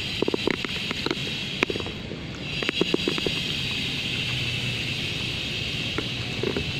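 Two Bichon Frise dogs lapping milk from a small glass bowl: quick runs of wet tongue clicks and slurps, busiest in the first three seconds, then sparser. A steady hiss runs underneath.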